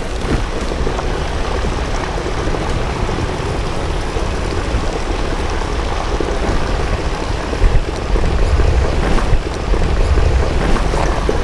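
Steady wind noise buffeting the microphone: a constant low rumble under a hiss, with a couple of brief louder gusts in the second half.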